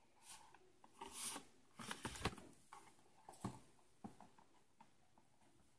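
A cardboard toy box handled on a table: a few faint scrapes and taps in the first four seconds.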